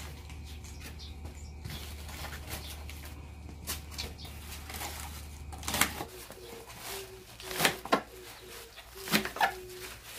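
Kitchen knife trimming young napa cabbage: crisp cuts and snaps through the stems, with leaves rustling as they are handled. The sharpest cuts come in the second half, several of them about a second apart.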